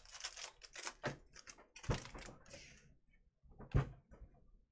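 Glossy Panini Prizm trading cards being flicked and slid one behind another in the hands, a quick run of small clicks. Two knocks follow, about two and four seconds in.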